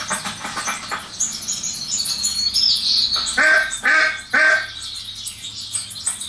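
Ducklings peeping in high, rapid chirps, with an adult duck quacking three times in quick succession about three and a half seconds in.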